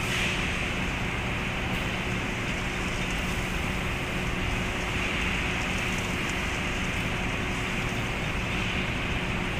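Inclined belt conveyor running steadily in a cement warehouse: a constant machine hum under an even rushing noise.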